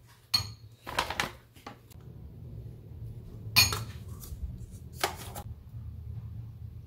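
A metal spoon clinking and scraping against a ceramic bowl while a filling is stirred, a handful of sharp clinks spread across the few seconds. A low steady hum runs underneath from about two seconds in.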